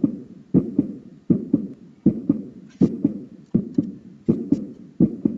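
Heartbeat sound effect: a steady lub-dub double thump repeating about every three quarters of a second.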